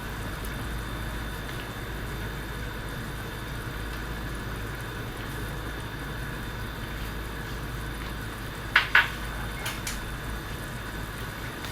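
Pot of rice and broth simmering on the stove, a steady hiss, with two quick sharp clinks of a utensil against the pot about nine seconds in.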